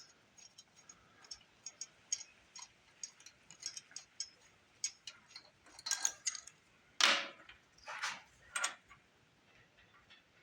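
Light metallic clicks and clinks as the intake rocker arm is worked off a Briggs & Stratton overhead-valve engine's cylinder head. A few louder scrapes come from about six to nine seconds in.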